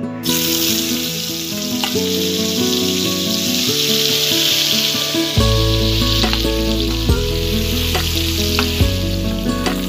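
Pointed gourd pieces sizzling as they fry in hot oil in a nonstick pan, with a few light knocks as a slotted spoon stirs them. Soft background music plays underneath.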